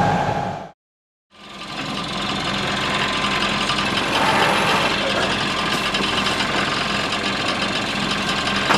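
Sailboat's inboard engine running steadily under way, with wind and water noise over it. The sound cuts out completely for about half a second a second in, then comes back.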